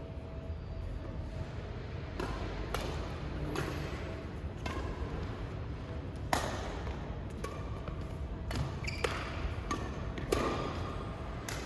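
Badminton rackets striking a shuttlecock in a rally: a string of sharp hits about once a second, the loudest a little past halfway, ringing in a large hall.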